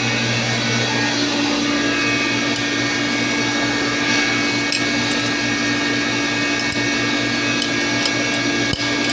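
A machine runs with a steady, even hum. Small light metallic ticks come now and then from a hand tool against the water pump's flange, with a sharper knock near the end.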